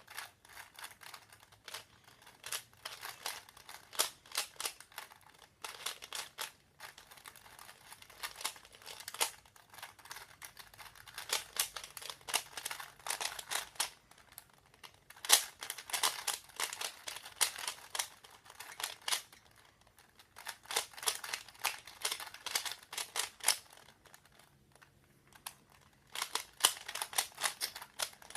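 Plastic Rubik's cubes being turned fast by hand: a dense, irregular run of small clicks and clatters from the layers snapping round, with a few brief lulls.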